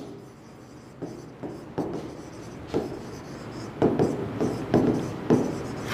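Stylus strokes on an interactive touchscreen board as words are handwritten: short, irregular scratches and taps, busier in the second half.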